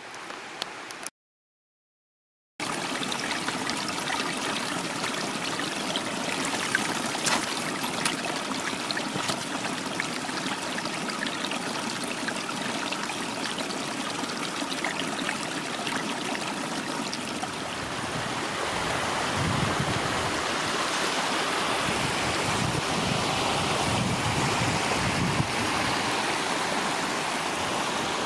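Mountain stream rushing steadily over rocks, growing somewhat louder in the second half, after a brief moment of silence near the start.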